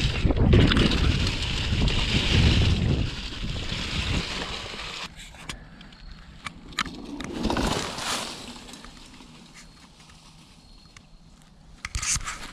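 Wind rushing over the camera microphone and mountain-bike tyres rolling over dry leaves on a trail descent for about the first four seconds. It then drops much quieter, with scattered clicks, a brief swell of leaf crunching as a rider passes a few seconds later, and a few sharp clicks near the end.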